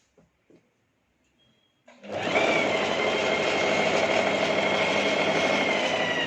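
Electric sewing machine stitching a seam. After a few faint clicks, the motor starts about two seconds in, quickly comes up to speed and runs steadily with a high whine, then starts slowing right at the end.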